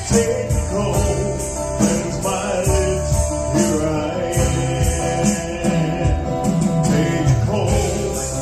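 Live country-gospel band playing an instrumental passage of a song.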